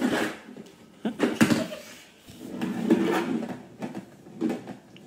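Golf ball knocking and rolling around the plastic ball-return gutter of an indoor putting mat as a cat bats at it: a few sharp knocks, then a longer rattling roll about halfway through.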